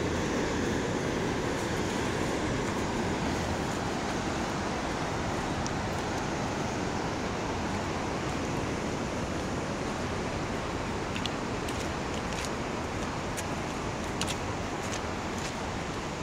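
Steady rush of a fast mountain creek below the trail, easing slightly over time, with a few faint sharp clicks near the end.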